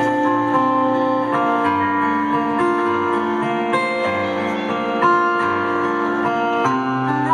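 Live acoustic guitar playing a slow instrumental introduction in a concert arena, the chords changing every second or so.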